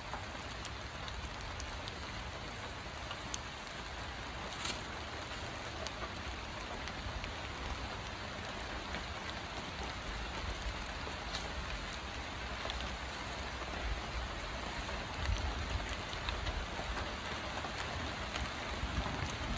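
Steady rain falling, an even hiss with a few sharp ticks of drops. A low rumble grows near the end.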